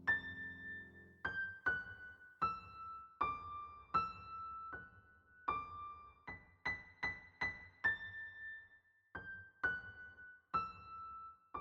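Background music: a slow, gentle solo piano melody of single high notes, each struck and left to fade.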